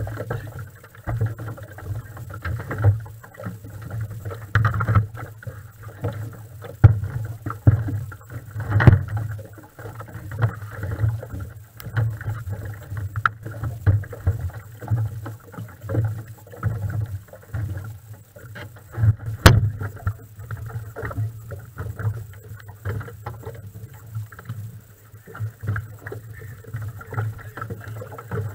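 Small waves slapping and lapping irregularly against the hull of a moored tunnel race boat, heard from a camera on the boat, with a few sharp knocks, the loudest about nine and nineteen seconds in.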